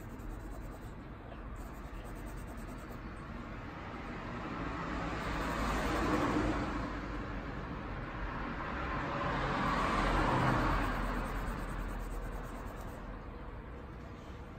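Two road vehicles passing by one after the other, each a rush of tyre and engine noise that swells and fades over a few seconds, the first loudest about six seconds in and the second about ten seconds in.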